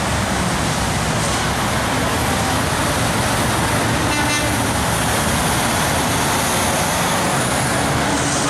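Steady noise of road traffic passing, with a brief horn beep about four seconds in.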